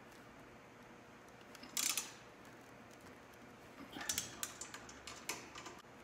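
Hand ratchet clicking as a bolt is tightened: one brief burst of clicks about two seconds in, then a run of quick clicks around four seconds and a couple more near the end.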